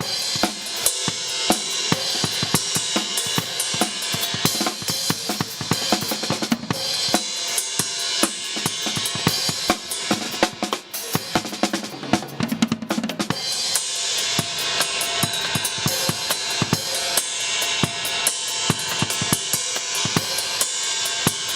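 A drum kit played at a busy pace, with snare and bass drum hits under a constant wash of cymbals.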